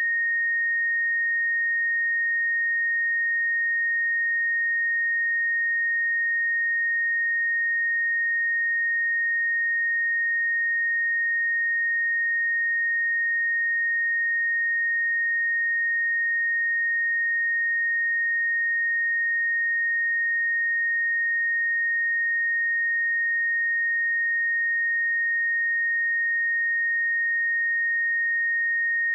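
A pure 1857 Hz sine-wave test tone, one steady high pitch held unchanged at constant level.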